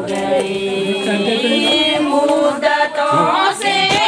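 Singing: a melody with long held notes that glide from pitch to pitch.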